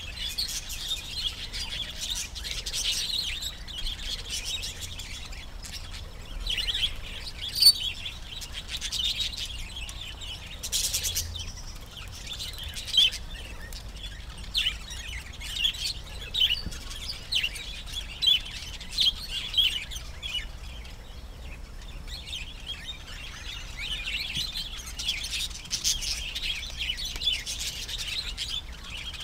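A flock of budgerigars chirping and chattering: a steady run of quick high chirps, with louder single calls standing out through the middle, the loudest about eight seconds in.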